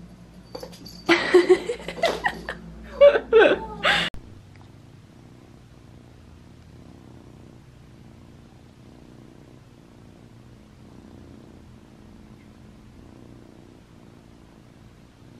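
Dilute calico munchkin kitten purring steadily and softly, after about three seconds of louder voice sounds near the start.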